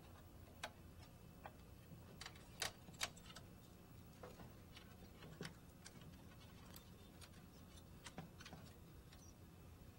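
Faint, scattered clicks and taps of plastic cable connectors being handled and seated on a LaserWriter Pro laser printer's laser scanner assembly, two sharper clicks close together about two and a half to three seconds in, over a low steady hum.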